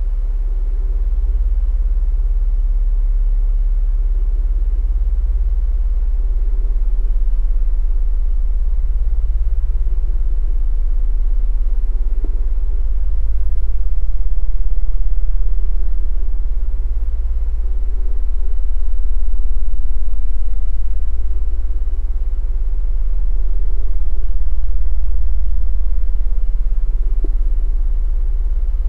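Deep drone of very low-frequency sound waves, a rumbling hum that swells and eases every few seconds, with a faint steady higher hum above it.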